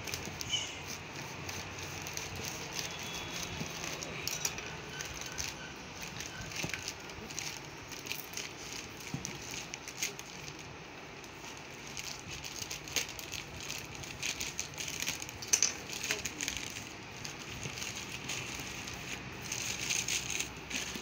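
Plastic courier pouch crinkling and crackling as hands work it open, in many irregular sharp crackles; near the end a box is pulled out of it.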